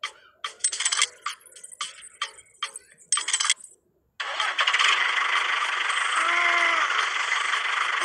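Small metal chain clinking and rattling in a series of short clinks as it is hooked onto a miniature toy tractor. About four seconds in, a steady engine-like drone starts as the toy tractor pulls.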